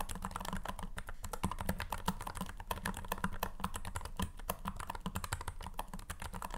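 Azio Cascade Slim low-profile mechanical keyboard typed on quickly, a dense, steady stream of many keystrokes a second. Its pre-lubed switches and dual dampers give a full sound, with no hollowness and no metallic ping.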